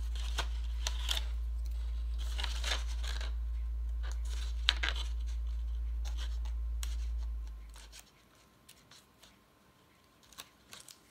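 Short scratches and crinkles as a craft knife tip picks at and peels the protective liner off double-sided tape on a paper box. A steady low hum underneath fades out about two-thirds of the way through.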